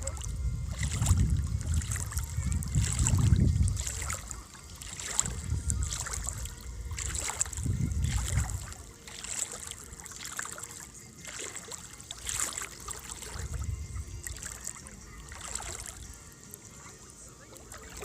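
Water splashing and sloshing in irregular bursts about every second or two, with wind buffeting the microphone, heaviest in the first half.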